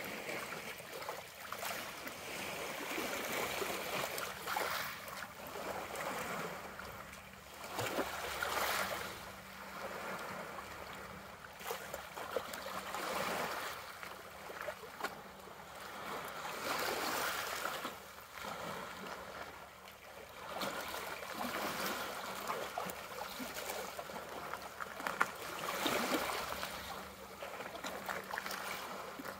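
Small, gentle bay waves lapping and trickling against rocks and a pebbly shore, the wash swelling and fading every few seconds.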